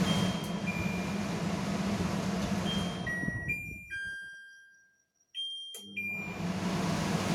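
Kitchen chimney range hood's blower running with a steady whoosh and hum, while its control panel gives short electronic beeps at different pitches as the hand sensor is used. About three and a half seconds in the blower winds down to silence, then after more beeps it starts up again.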